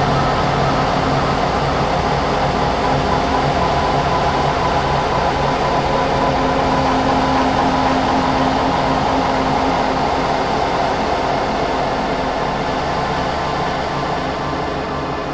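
Dark ambient electronic drone: a dense hissing noise wash with a few steady low hums and mid tones held beneath it, slowly fading toward the end.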